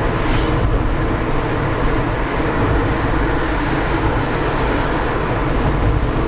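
Steady engine and tyre road noise heard from inside a moving car's cabin.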